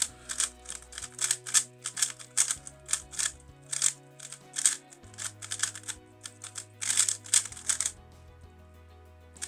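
Background music with a steady bass line, over fast runs of plastic clacking from a MoYu RS3M 2020 magnetic 3x3 speedcube being turned. The clacking stops about 8 seconds in.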